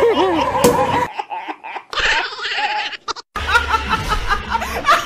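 People laughing, broken by abrupt cuts between clips. From about three and a half seconds a woman laughs hard in a quick run of repeated high laughs.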